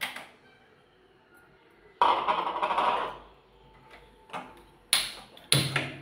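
Kitchen handling noises at a gas stove: a click at the start, a short noisy burst about two seconds in, then three sharp clicks and knocks near the end, the last ringing briefly.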